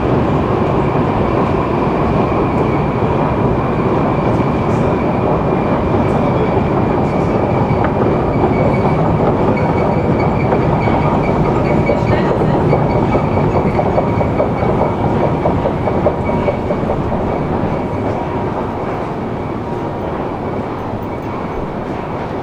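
Steady loud rumble of Prague metro machinery with a thin high whine above it, easing off a little in the last few seconds.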